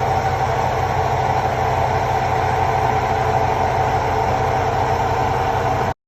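Heavy engine running steadily with a pulsing low rumble and a steady mid-pitched tone, cutting off abruptly near the end.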